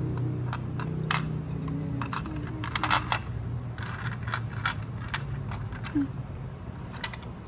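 Small plastic toy pieces clicking and clattering as they are handled and pressed into a plastic miniature dollhouse: light, irregular clicks, a few in quick clusters around the middle.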